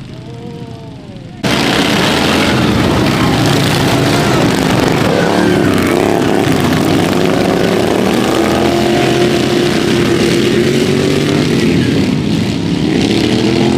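Several racing ride-on lawnmower engines running and revving together, their pitch rising and falling. About a second and a half in they suddenly get much louder and stay loud, with revs climbing near the end.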